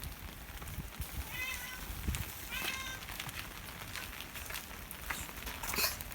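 Cat meowing twice, two short high-pitched calls about a second apart, roughly a second and a half in.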